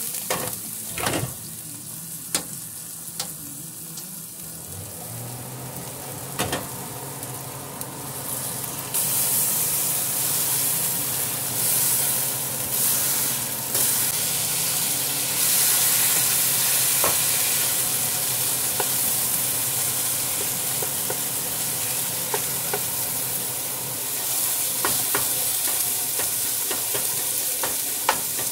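Ground beef sizzling as it fries in a nonstick skillet over a gas burner, the meat a partly frozen block being broken up. A utensil scrapes and taps against the pan as it is stirred. The sizzle grows louder about nine seconds in.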